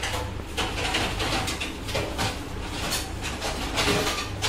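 Pancake batter sizzling as it is poured into a hot, buttered non-stick pan: an uneven hiss with irregular crackles.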